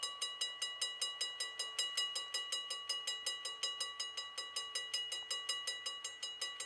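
Railroad grade-crossing warning bell ringing rapidly, about five strokes a second, each with the same metallic ring. The crossing signals are active for an approaching train.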